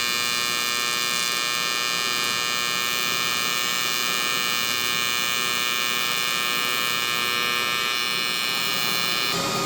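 Welding arc on aluminum, a steady electric buzz with a high whine, cutting off abruptly about nine seconds in.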